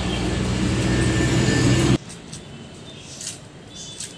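A steady motor rumble with a low hum grows slightly louder, then cuts off abruptly about two seconds in. After that come faint scrapes and ticks of a small knife peeling the papery skin off a red onion.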